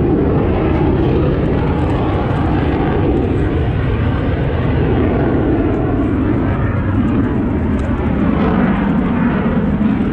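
Airplane engine noise: a loud, steady rush of sound with no clear tone.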